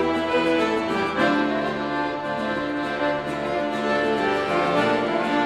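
A traditional music ensemble playing, with accordion and fiddle holding sustained chords that change about a second in and again near the end.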